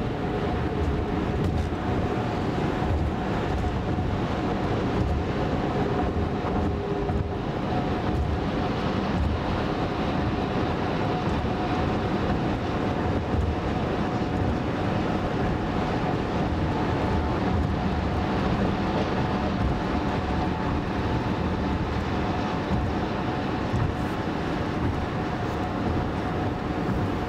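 Steady road and wind noise inside a 2010 Toyota Camry's cabin at about 70 mph on the interstate, with a faint steady hum, as semi trucks overtake in the next lane.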